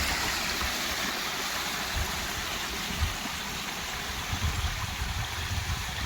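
Waterfalls rushing in a steady, even hiss, with irregular low rumbles underneath that come more often in the second half.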